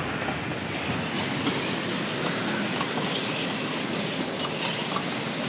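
Freight train of tank cars rolling past: a steady rumble and rush of steel wheels on rail, with scattered light clicks of wheels over the rail joints.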